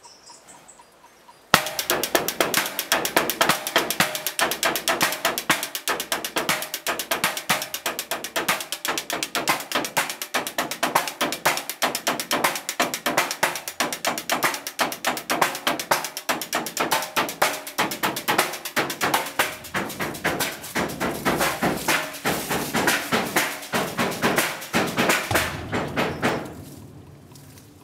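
Fast, steady rhythm of junk percussion: metal sheeting and a van's side panel struck with mallets and sticks, several hits a second, built into a beat. It starts suddenly with one loud hit about a second and a half in and fades out near the end.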